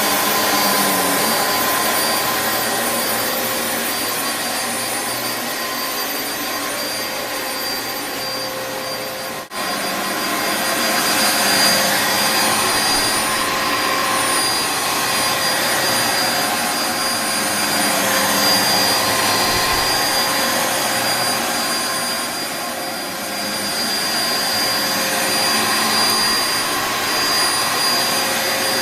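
Dyson DC07 Animal upright vacuum cleaner running steadily: rushing airflow with a high motor whine over it, and a momentary break in the sound about nine and a half seconds in.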